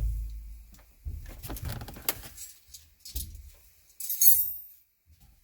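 Workshop handling noises: a few dull knocks and rustles, then a short bright metallic jingle, like tools or metal parts clinking, about four seconds in.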